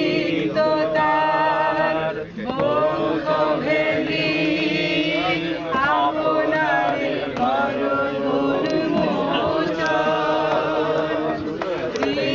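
A mixed group of men and women singing a song together, with short breaks between phrases.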